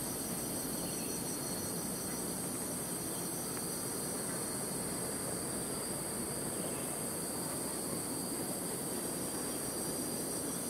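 Steady chorus of insects droning with a constant high hiss-like whine, over a faint low rumble from a distant diesel locomotive approaching along the line.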